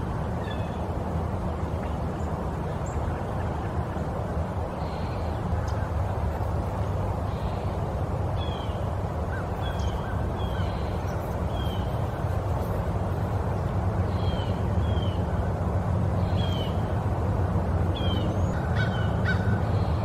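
Birds giving short, high, falling chirps, one or two at a time every second or few, over a steady low background rumble.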